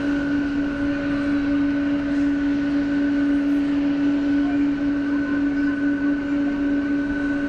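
Jet airliner engines running steadily: a constant low hum with a higher steady tone over an even rushing noise.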